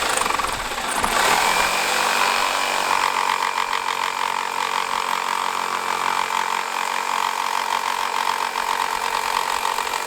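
Handheld power tool running steadily under load, shaping the thick end of a piece down to a point. A stronger, higher note comes in about three seconds in.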